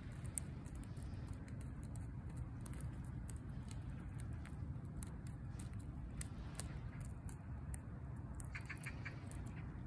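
Orange tabby cat clawing tree bark: a run of dry, scratchy clicks from its claws dragging on the trunk, over a steady low rumble.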